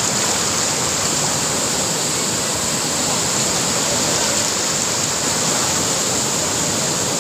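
A river in full flood rushing through rapids: a steady, loud rush of churning muddy water.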